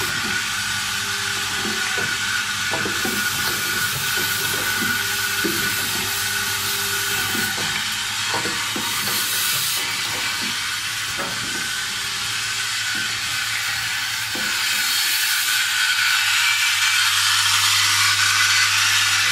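Automated O-ring assembly machine running: a steady hiss and hum with irregular light clicks and knocks from its moving parts. Near the end the low hum grows louder as the vibratory bowl feeder comes close.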